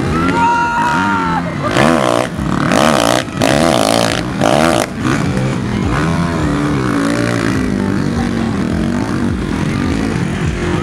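Several dirt-bike engines revving hard, their pitch rising and falling again and again, as the bikes labour up a mud mound with rear wheels spinning. The hardest bursts of revving come about two to five seconds in.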